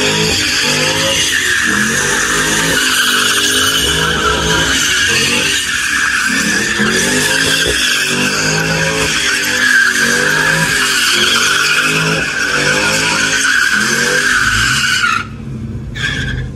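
Car doing donuts: its tyres screech against concrete while the engine revs rise and fall. The screech stops about fifteen seconds in, and the engine drops back to a lower, steadier note.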